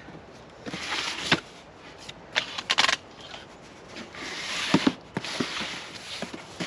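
Rustling and scraping of something being handled, in several short spells, with a few sharp clicks.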